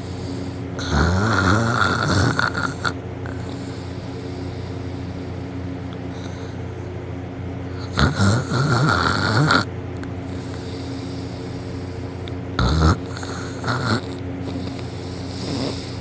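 A sleeping person snoring through a wide-open mouth, really loud: long snores about a second in and again around eight seconds, then two short ones near the end.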